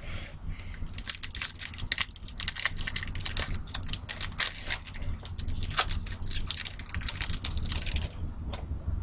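Rapid crinkling and crackling of a trading-card pack wrapper and cards being handled, dense from about a second in until it stops near the end.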